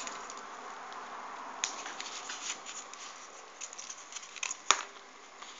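Folded paper units of a 3D origami model rustling and clicking as they are handled and pushed into the gaps, with one sharp click a little before the end.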